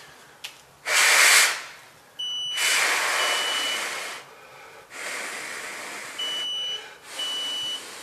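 Someone blowing hard in several long puffs on a water-leak sensor to dry it, the first puff loudest. Between and over the puffs the Aquastorozh leak-protection controller sounds its alarm in short high beeps of about half a second, the sign that the sensor is still wet and reads as a leak.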